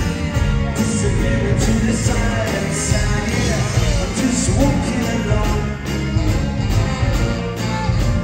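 Live ska-pop band playing through a theatre PA: male lead vocal over drums, bass guitar and saxophone, with a cymbal or snare accent about once a second.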